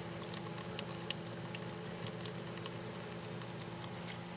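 A small terrarium waterfall trickling and splashing steadily, with scattered light drips and a steady low hum underneath.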